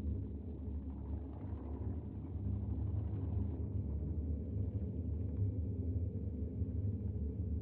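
Steady low rumble of outdoor background noise picked up by a security camera's microphone, with a faint low hum and no distinct events.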